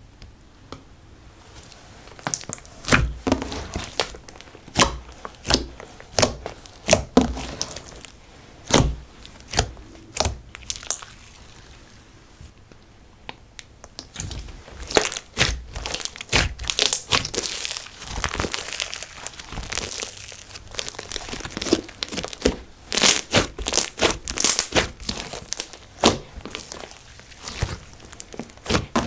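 Slime being squeezed and poked by hand: a run of irregular, separate sticky pops and clicks, then a denser stretch of crackling about halfway through.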